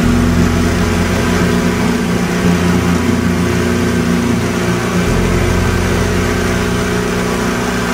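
Yamaha outboard motors running steadily with the boat under way, a constant engine drone with a low hum that swells about five seconds in.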